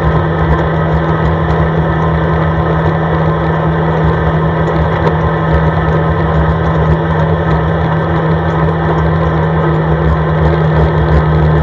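CFMoto ATV engine running at a steady cruising speed, a loud even drone whose pitch holds steady throughout.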